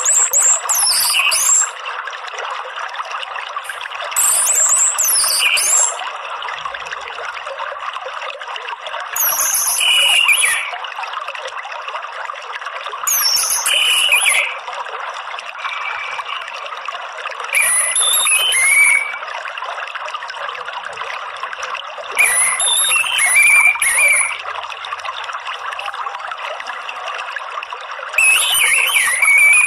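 Orange-headed thrush giving bursts of rapid, high twittering calls (the 'ngeriwik' chatter used as a lure to set a caged thrush singing), about every four to five seconds. Under it runs a steady trickle of water.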